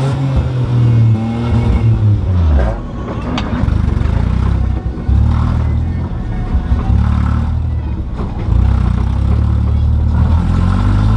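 Car engine running, heard from inside the cabin, with its pitch rising and falling as it revs in the first couple of seconds, then a steady drone; a sharp crack sounds about three seconds in.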